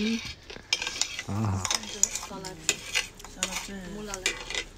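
Cutlery clinking and scraping on ceramic bowls and plates as people eat, a scattered run of short sharp clicks, with low voices talking briefly between them.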